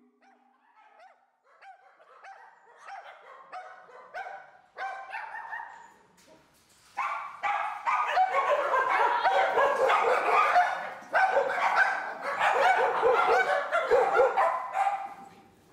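A large group of dogs barking together, many overlapping barks. The barks start faint and scattered, build up, and become a loud continuous din from about seven seconds in.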